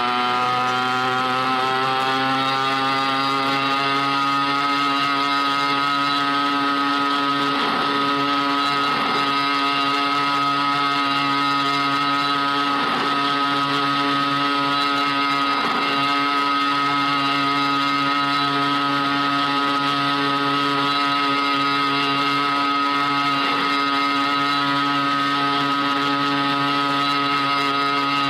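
Scooter engine running at speed: its pitch rises over the first few seconds as it accelerates, then holds steady, with a few brief dips in pitch.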